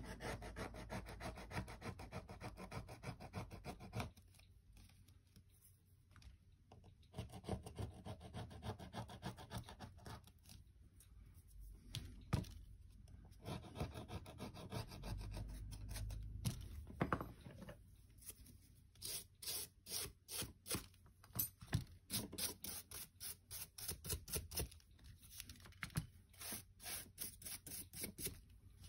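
Scraping and rubbing on a Samsung Galaxy Tab A7 tablet as it is taken apart, in fast, dense strokes broken by a few short pauses. In the last third this turns into separate strokes about two a second.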